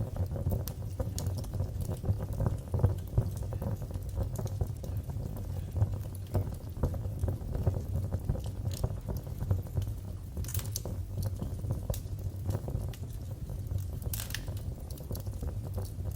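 Fire crackling in a fireplace: a steady low rumble of flames under dense small crackles, with two sharper pops about ten and fourteen seconds in.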